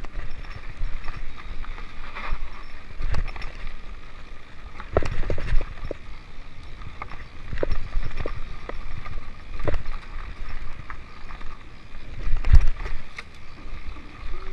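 Mountain bike clattering and knocking over rough trail, irregular sharp knocks over a steady low rumble, loudest about five seconds in and again near the end.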